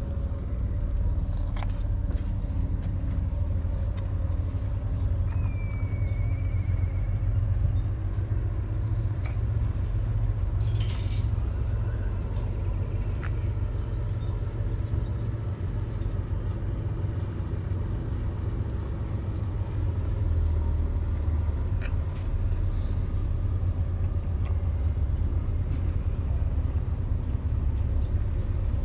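Steady low rumble of wind buffeting the microphone, with a faint, brief high chirp about five seconds in.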